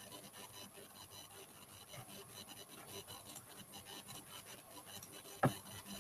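Faint scratching and rubbing of a stylus on a graphics tablet, with many small irregular clicks and one sharper click about five and a half seconds in.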